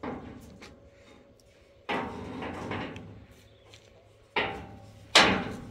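Steel roof-frame beams knocked and scraped as they are shifted on a cinder-block wall: four knocks, one about two seconds in dragging on as a longer scrape, the loudest near the end.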